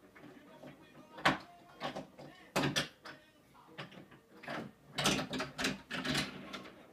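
Wooden toy train set pieces clacking and knocking as a toddler handles them: a string of sharp knocks, the loudest about a second in, with a cluster between five and six seconds in.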